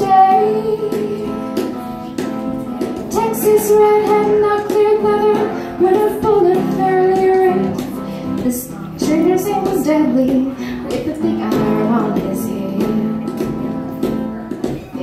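A woman singing a melody into a microphone over strummed acoustic guitar, in phrases with short breaths between them.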